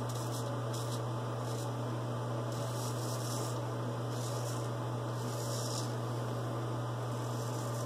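A straight razor's short, scratchy strokes cutting through lathered stubble, several in a row at irregular intervals, over a steady low electrical hum.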